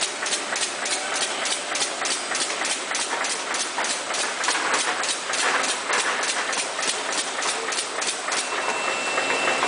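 Automatic plastic-bag cutting and sealing machine running its cycle, a sharp clack about three times a second over a steady mechanical hiss. A thin high whine joins near the end.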